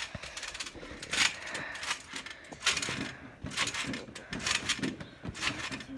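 Metal springs of a backyard trampoline creaking and jingling as someone bounces on it, about once a second.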